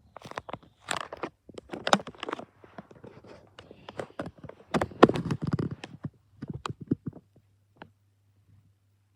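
A desk fan being handled: a quick run of clicks, knocks and scraping rattles that stops about seven seconds in, leaving a faint low hum.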